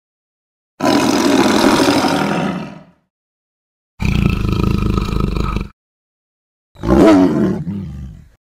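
Three separate creature roar sound effects, each one to two seconds long with short silences between; the last one drops in pitch as it fades.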